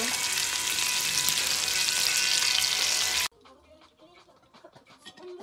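Pork belly and chicken wings sizzling as they grill, a dense steady hiss that cuts off suddenly about three seconds in.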